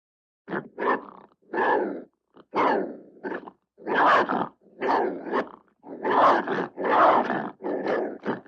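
Wolf snarling and growling in a rapid, irregular run of short harsh bursts, beginning about half a second in after a silence.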